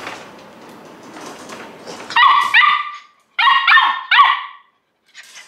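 Samoyed puppy crying in two runs of short, high-pitched yelps, starting about two seconds in. The owner puts the crying down to the puppy missing her siblings.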